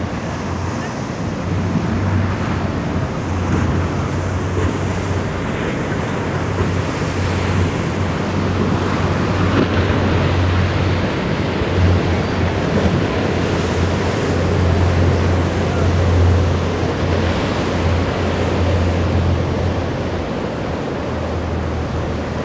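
Rough waves and surf churning in an ocean inlet, with wind buffeting the microphone and a steady low rumble underneath.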